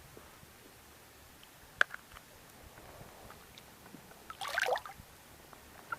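A short splash of water about four and a half seconds in, with a single sharp click near two seconds in; otherwise quiet.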